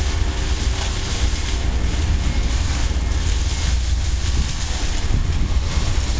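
Wind buffeting the microphone with a steady low rumble, over the distant running of an approaching SM42 diesel-electric locomotive hauling a freight train.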